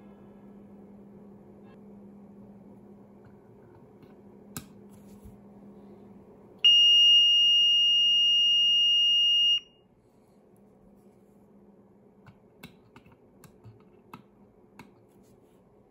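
ROSHNI LP fire alarm sounder, on its low volume setting, sounding a steady high-pitched continuous tone for about three seconds before cutting off abruptly. A few small clicks come before and after the tone.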